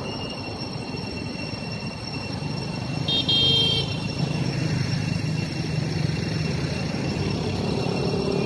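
A vehicle horn toots once, briefly, about three seconds in, over the steady rumble of passing road traffic.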